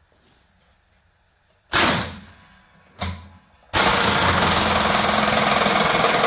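Impact gun running a nylon locking nut down onto a hydraulic cylinder's piston: two short blips, then a sustained burst of rapid hammering from a little before halfway on as the nut is driven home.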